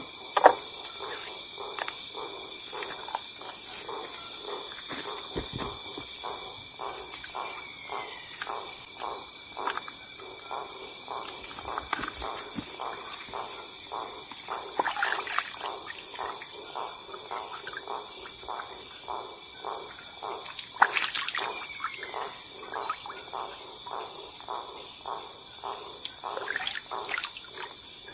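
Night insect chorus in the forest: a steady, high buzzing and trilling from crickets and other insects, with a soft regular ticking about twice a second underneath.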